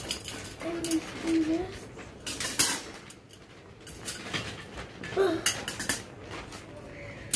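Stainless steel wire dish-rack shelves and frame rails clinking and clattering against each other as they are handled, with a series of short metallic knocks, the sharpest about two and a half seconds in.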